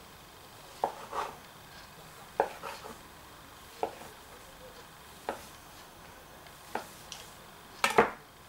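Kitchen knife cutting sponge cake into cubes on a wooden cutting board: the blade knocks on the board about every second and a half, with a louder clatter near the end.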